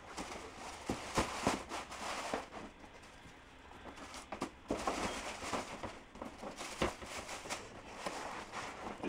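Tissue paper rustling and crinkling in a cardboard shoebox, with irregular knocks and taps as shoes are lifted out and set in. The handling comes in a few bursts, with a quieter stretch a few seconds in.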